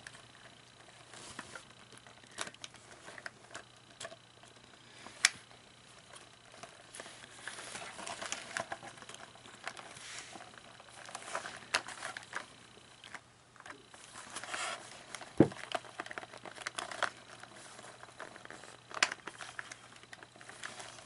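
Hand-handling noise from small plastic animatronic parts being fitted together: irregular clicks, taps and rustling, with a few sharp clicks, the loudest about fifteen seconds in. A faint steady hum runs underneath.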